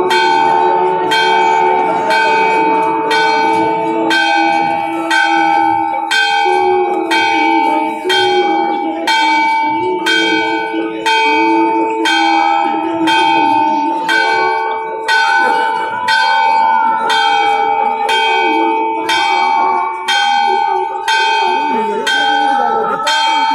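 Brass temple bells rung over and over, about one strike a second, each strike ringing on into the next, with two slightly different pitches alternating. Crowd voices sound faintly beneath.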